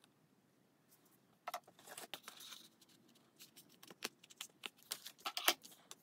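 Cardstock being handled on a cutting mat: irregular rustling and light taps beginning about a second and a half in, then clicks from a tape runner being pressed and run along the card near the end.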